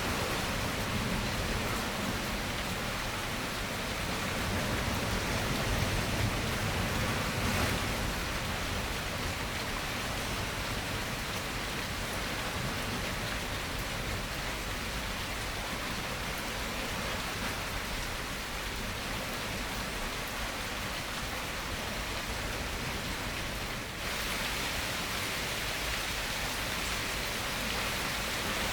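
Steady rain falling, an even hiss. About four-fifths of the way through, the sound turns slightly brighter.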